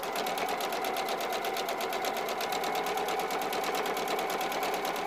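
Electric sewing machine stitching a seam at a steady speed, a fast, even run of needle strokes.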